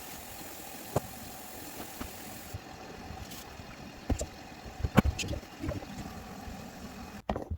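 Scattered clicks and knocks of hands and a tool working a faucet's hand-tightened connection under a bathroom sink, over a steady hiss. The connection is being snugged up to stop a leak.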